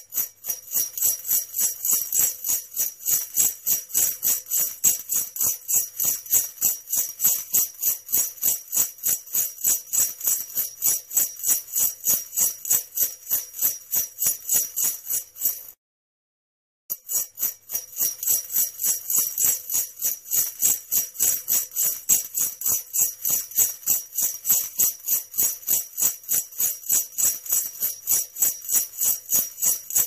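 Sleigh bells jingling in a quick, steady rhythm of repeated shakes, cutting out for about a second midway before starting again.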